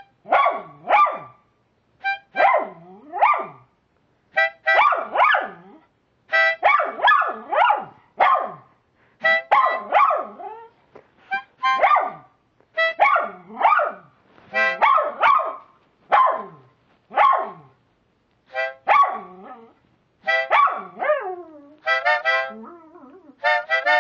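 A dog howling along to a harmonica, in short cries about once a second, each sliding down in pitch. The harmonica plays short notes with it and holds a chord near the end.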